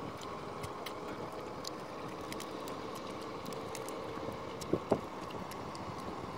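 Steady outdoor background noise with a faint hum, many small scattered clicks, and two short louder sounds close together nearly five seconds in.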